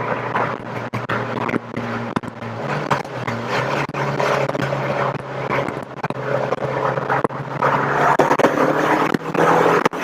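Rover K-series 1.8 VVC engine running under load, heard from inside the Metro's cabin; its pitch steps up about three seconds in, over a rough haze of road and microphone noise with scattered knocks.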